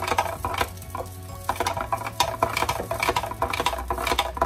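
Long metal spoon stirring creamy coquito in a glass pitcher, the spoon clinking against the glass about three to four times a second, with a short lull about a second in.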